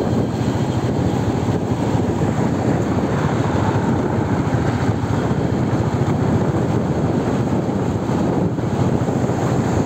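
Steady road-travel noise from a moving vehicle: a dense, even rumble of engine and tyres mixed with wind buffeting on the microphone.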